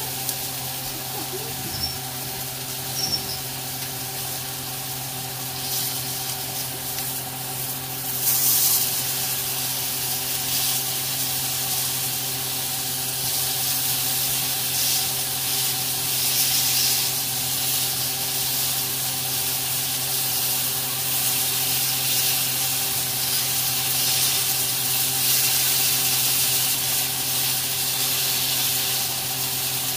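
New York strip steaks sizzling in a hot grill pan: a steady high hiss that turns louder about eight seconds in and stays so, over a steady low hum.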